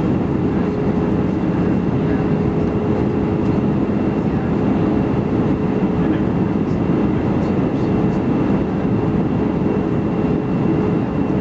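Steady cabin noise of an Airbus A319 airliner in flight on approach: a constant rush of engine and airflow noise with a steady hum running through it.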